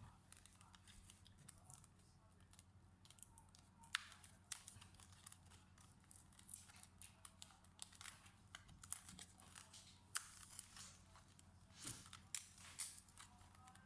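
Faint, irregular clicks and light ticks from hands handling a laptop and its small upgrade parts, with a sharper click about four seconds in.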